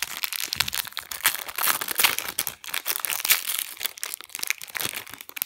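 Foil wrapper of a Pokémon TCG Evolutions booster pack crinkling in a dense, irregular run of crackles as hands handle and open it.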